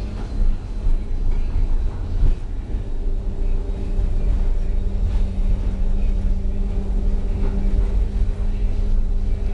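Tram running along the street, heard from inside the car: a steady low rumble of the wheels on the rails, with a couple of jolts in the first two seconds. About two and a half seconds in, a steady low hum joins the rumble and holds.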